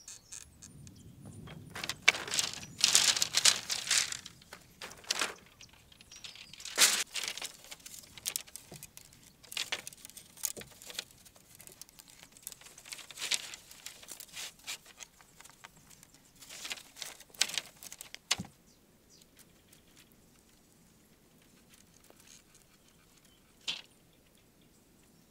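Dry bamboo strips rustling and clacking as they are handled by hand, in irregular scratchy bursts with sharp clicks. It falls mostly quiet for the last several seconds, with one more click near the end.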